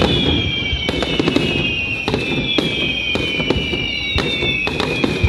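Aerial fireworks bursting in a quick series of sharp bangs and crackles, about two a second. Behind them runs a high whistling of several tones together that slowly fall in pitch.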